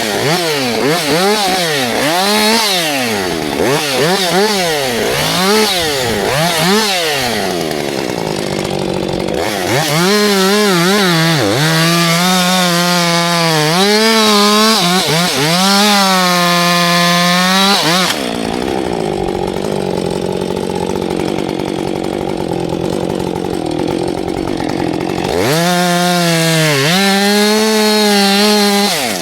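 Two-stroke Husqvarna chainsaw revving up and down about once a second, then held at high revs. Partway through, its steady note gives way to a rougher noise for several seconds, and near the end it runs at high revs again.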